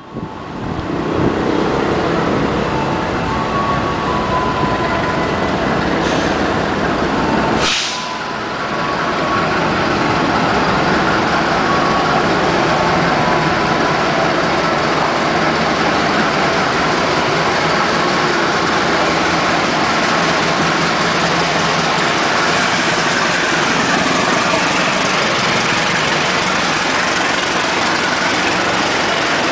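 Diesel-hauled passenger train running into a station: a steady, loud rumble of the locomotive and the coaches' wheels on the rails, with a brief dip in level about eight seconds in.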